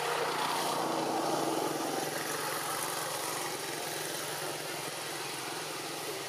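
A motor engine idling steadily, a little louder in the first couple of seconds.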